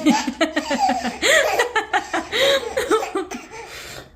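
A baby laughing in a rapid string of short, breathy bursts that fade out shortly before the end.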